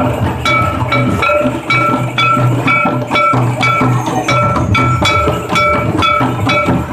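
Santali dhol drumming in a steady, fast rhythm of about three to four strokes a second, each stroke with a deep thud and a short bright ringing tone.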